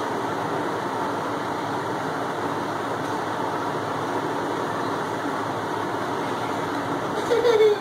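Steady, even background noise with no distinct events, like a running fan or air conditioner. A short faint pitched sound comes near the end.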